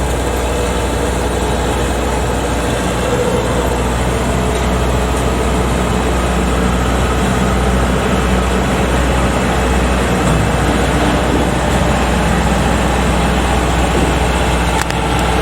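Large engine running steadily and loudly close by, an even, unbroken machine drone with no changes in pace.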